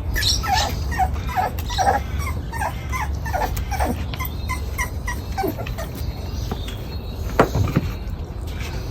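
A puppy whimpering in a quick run of short, high squeaks that each fall in pitch, two or three a second, fading out about halfway through. Near the end come a couple of sharp knocks.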